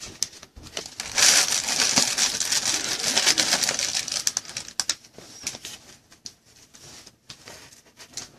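Crinkling and rustling of trading cards and their packaging being handled: a dense burst of crinkling for about three seconds, then scattered light clicks and rustles.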